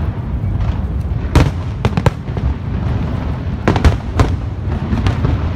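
Aerial firework shells bursting in a large fireworks display: a series of sharp bangs at irregular intervals over a continuous low rumble, the loudest about one and a half seconds in and again near four seconds.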